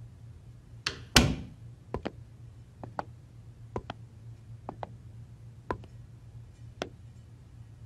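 Hard-soled shoes stepping slowly across a tiled office floor, roughly one step a second. About a second in, a heavy door shuts with a loud thud, the loudest sound here.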